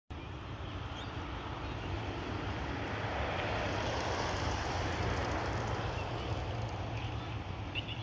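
Steady outdoor rumble and hiss that swells gradually about midway and then eases off.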